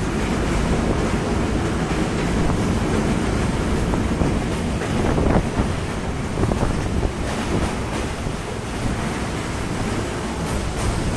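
Wind rushing over the microphone, mixed with the steady low rumble of a moving passenger train.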